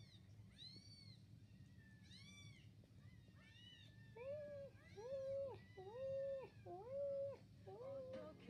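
Cats meowing, heard through a laptop speaker: three short, high-pitched mews in the first few seconds, then about four longer, lower meows in the second half.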